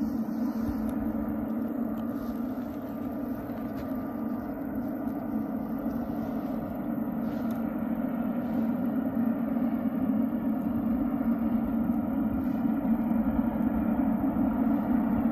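Jet engines of a taxiing twin-engine airliner, heard from a distance as a steady low hum that grows slightly louder over the second half.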